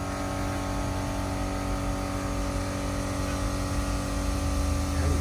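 Steady machine hum at an unchanging pitch with a low rumble underneath, like an engine or motor running at constant speed.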